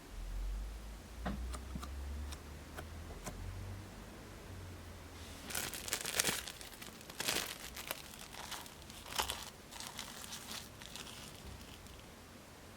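Hands handling crafting materials: a few light clicks, then several seconds of crinkling and rustling.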